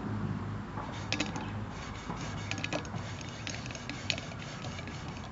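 Crumpled paper towel rubbing and crinkling against the bottom of a metal cooking pot as soot is wiped off, with a few sharper crinkles. A steady low hum runs underneath.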